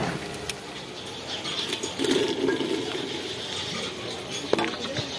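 Diced potatoes tipped into a metal pot of hot tomato masala on a wood fire: a rushing burst of sizzling about two seconds in, with a few sharp clicks and knocks of the pot around it.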